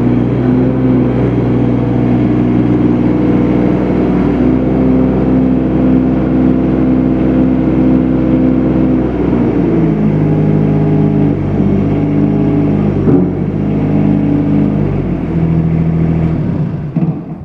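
Bobcat MT50 mini track loader's diesel engine running steadily at a raised speed, then throttled down about ten seconds in to a lower, steady run. Near the end the engine is shut off and the sound dies away.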